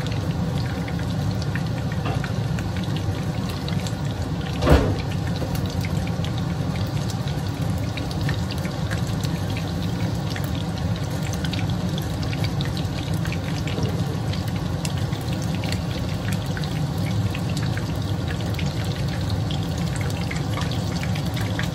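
Chicken karaage deep-frying in oil: a steady sizzle with many small crackles over a low hum, broken by one brief knock about five seconds in.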